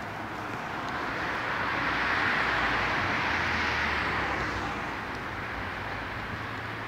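A car driving past on the street: its tyre and engine noise swells, is loudest two to four seconds in, then fades away.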